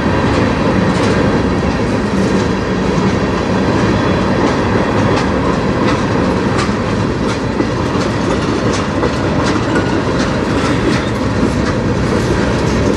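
Freight train of tank cars and covered hopper cars rolling past, a steady rumble of steel wheels on rail with clicks over the rail joints about once or twice a second.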